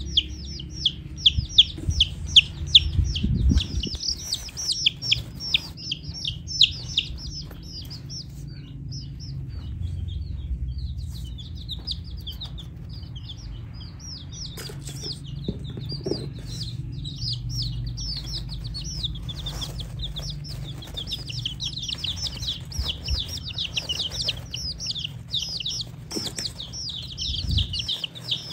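Baby chicks peeping: many quick, high, falling chirps in dense runs, thinning out in the middle and picking up again near the end, over a steady low rumble.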